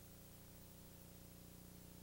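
Near silence: a faint steady low hum with hiss, no hoofbeats or commentary.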